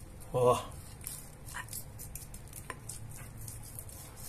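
Knife and fork cutting through stuffed roast chicken on a ceramic plate, with a few light clicks and scrapes of the metal against the plate.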